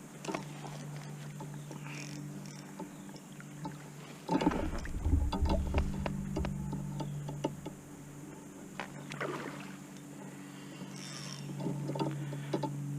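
Sounds of a fishing kayak on the water: knocks and handling noises against the hull, with water sounds and a low rumble loudest about four to seven seconds in, over a steady low hum.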